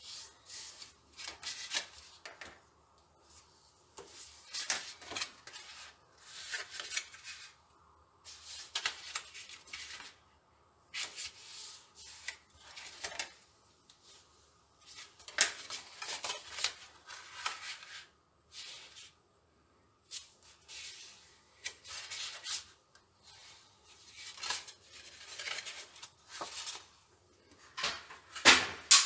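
Hands handling and rubbing a sheet of card on a cutting mat: irregular rustling and sliding strokes with short pauses between them, and a louder knock near the end.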